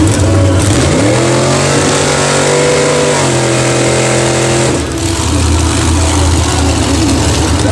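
Big-block engine of a Mazda-bodied mega truck revving hard as the truck sits stuck in deep mud with its tyres spinning. The revs climb about a second in and hold high, then drop a step. About two-thirds of the way through they fall away to a low rumble.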